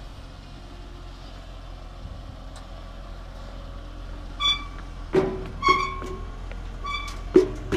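A vehicle's reversing alarm beeping three times, about a second apart, over the steady hum of an idling engine, with two sharp knocks in between.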